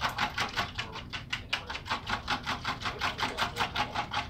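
Raw eggs being whisked by hand in a bowl: a quick, steady clicking of the utensil against the bowl, about seven strokes a second.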